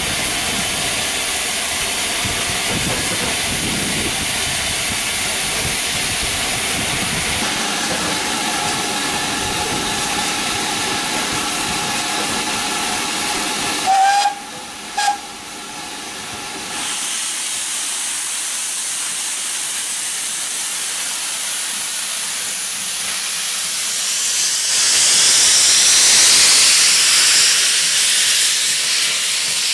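GWR 5101 class 'Large Prairie' 2-6-2 tank engine No. 4144 standing in steam with a steady hiss, sounding two short toots on its steam whistle about halfway through. Near the end its open cylinder drain cocks blow off a louder, sharper hiss.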